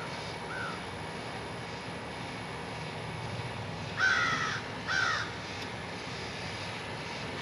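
Two loud cawing bird calls about four and five seconds in, with fainter calls near the start, over a steady low drone.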